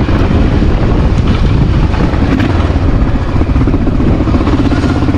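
Honda XR650L's single-cylinder four-stroke engine running steadily as the motorcycle rides along a dirt trail, with wind rushing over the microphone.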